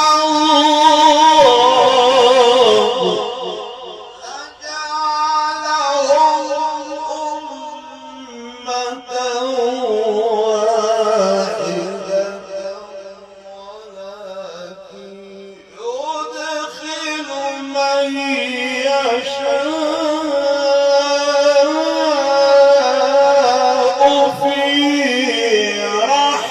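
A man's voice reciting the Quran in the melodic mujawwad style, drawing out long ornamented notes with a wavering vibrato. He breaks off briefly about sixteen seconds in, then starts a new phrase.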